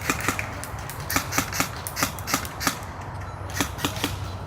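Airsoft guns firing single shots: sharp clicks at an uneven pace of about two to four a second, pausing briefly twice, over a steady low hum.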